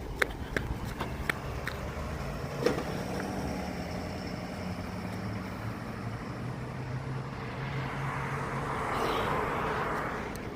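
A tow truck's engine running as it drives off, with the noise swelling to its loudest about nine seconds in and easing off near the end. A few sharp clicks come in the first couple of seconds.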